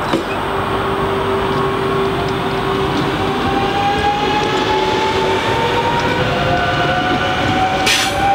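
CP stainless-steel electric multiple unit running past on the curve: wheel-and-rail rumble with a motor whine that climbs slowly in pitch as the train gathers speed. A short hiss comes near the end.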